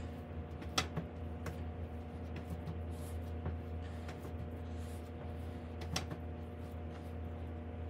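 Bread dough being kneaded by hand on a countertop: soft pressing and handling with two sharper knocks, about a second in and near six seconds, over a steady low hum.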